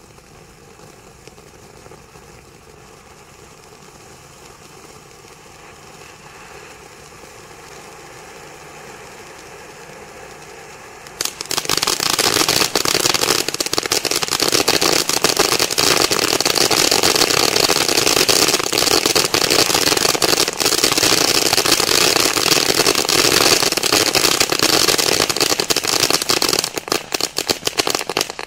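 Sky Painter JL1953F Magic Show ground firework fountain spraying sparks with a steady hiss. About eleven seconds in it turns much louder into a dense crackling spray, which breaks up into scattered pops and dies away near the end.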